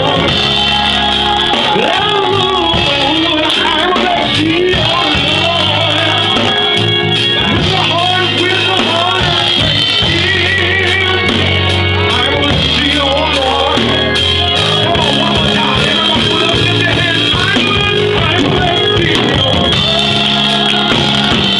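Live church praise band playing on drum kit, electronic keyboards and organ, loud in a small room, with voices singing along.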